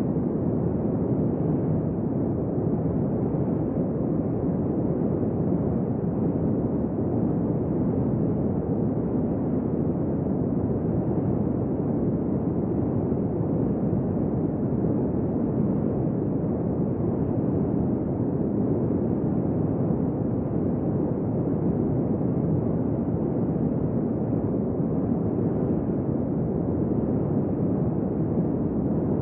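Steady, even rushing noise, deep and muffled, that does not change at all.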